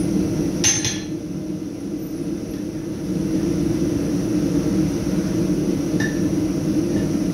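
One ringing hammer blow on hot steel on the anvil about a second in, then two faint metal clinks from the tongs on the workpiece near the end, over a steady low hum.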